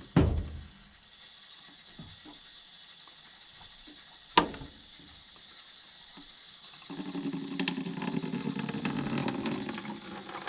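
A drain on a basement water pipe being opened by hand, with clicks and a sharp knock. About seven seconds in, a small steady trickle of water starts running from the pipe into a bucket as the line to the outdoor spigot is drained against freezing.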